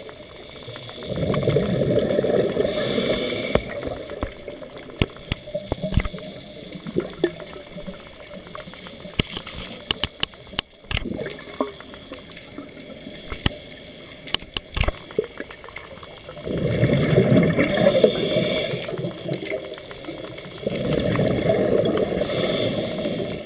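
Scuba regulator breathing underwater: three long rushes of exhaled bubbles, about a second in and twice in the last third, with scattered sharp clicks and crackles between.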